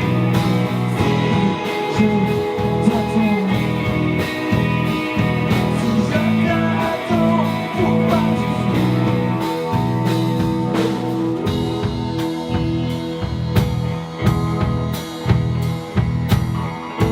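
Instrumental break in a rock song: sustained guitar over bass. A steady drum beat of about two strokes a second comes in about two-thirds of the way through.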